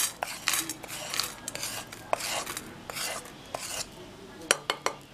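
A wooden spatula scraping roasted chana dal, curry leaves and dried red chillies out of a kadai onto a steel plate: repeated scrapes and the rattle of the dry spices falling, with a few sharp clicks near the end.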